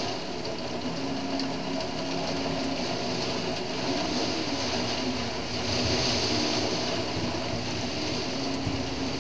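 Steady heavy rainfall, a dense even hiss, with a faint steady hum beneath it.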